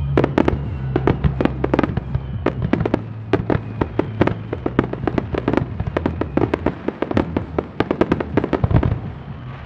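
Starmine fireworks display: a rapid, irregular barrage of shell bursts and launch reports, several a second, thinning out near the end. Music played alongside the show is heard under the bangs, strongest in the first few seconds.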